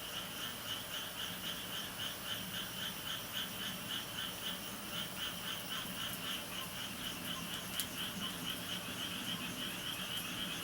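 A chorus of calling animals: short calls pulsing steadily about four times a second, with a single sharp click about eight seconds in.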